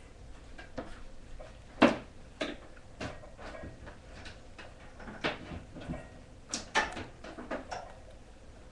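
Irregular taps and knocks of hands striking each other and the chest while signing in sign language, the loudest a sharp thump about two seconds in and a quick cluster of taps near seven seconds.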